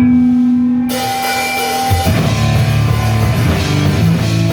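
Live punk rock band: a held electric guitar chord rings out, then drums and cymbals crash in about a second in and the full band is playing by about two seconds in.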